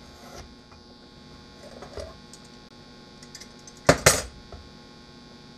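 Steady electrical hum under faint small taps and scrapes of work at the bench. About four seconds in come two loud, quick clatters close together as the work lamp over the bench is grabbed and moved.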